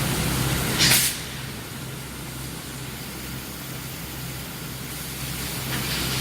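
Induction hardening and quenching line for steel sucker rods running, with a steady machine noise and a pulsing low hum. A short, loud hiss comes about a second in, and fainter hisses come near the end.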